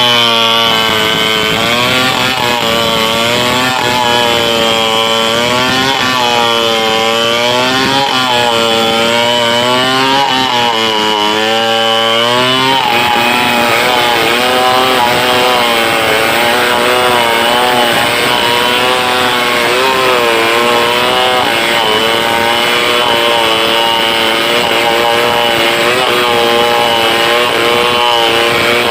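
Stihl 070 two-stroke chainsaw running hard through a big log, its engine pitch dipping and recovering about every two seconds under the load of the cut. A little before halfway the pitch settles and holds steadier.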